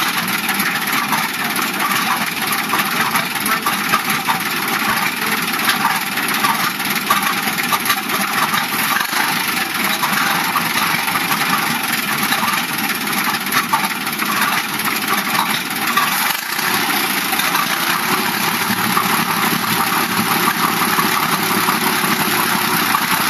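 Engine of a vintage American LaFrance fire-truck pumper running steadily throughout, with no break or start-up event.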